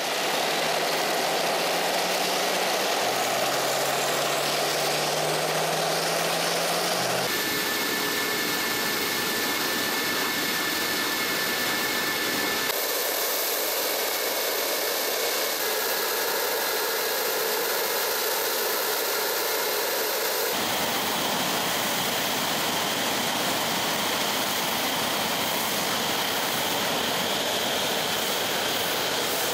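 Su-57 fighter's jet engines running on the ground at low power: a steady rushing noise with a high whine on top. A low hum rises in pitch for a few seconds near the start, and the sound shifts abruptly several times.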